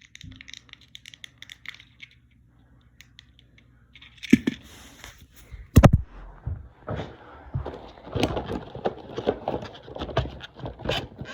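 Hands handling a small plastic toy robot and its packaging: scattered clicks and scrapes, one loud sharp snap about six seconds in, then a busier run of clicking and crackling near the end.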